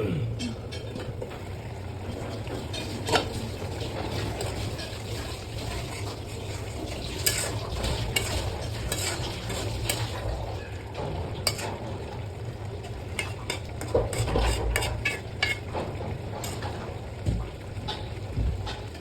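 A spatula stirring and scraping in a pan of frying fish curry, with scattered sharp clinks against the pan over a steady sizzle.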